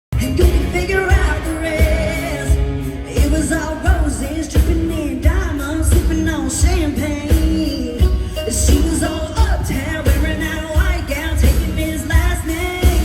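A woman singing lead with a live country-pop band, over a steady drum beat.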